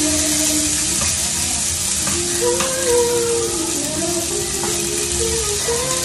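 Sliced tomato and diced pork sizzling in a non-stick frying pan, stirred with a wooden spatula, with a steady frying hiss and a few light knocks of the spatula against the pan.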